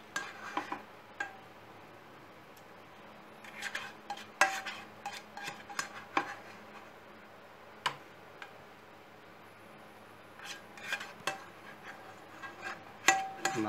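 Metal spoon scraping and clinking against a saucepan as thick sauce is scooped out, in scattered clusters with quiet gaps between, including one sharp clink about eight seconds in.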